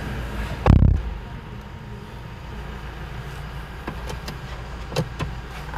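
Toyota Fortuner's driver door shutting with one heavy thump about a second in, after which the outside noise falls away. A few light clicks follow over a steady low hum.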